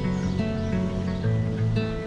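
Background music with guitar, steady notes changing every half second or so.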